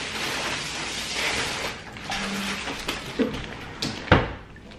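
Rustling and handling noise close by, with small knocks, ending in one loud thump a little after four seconds in.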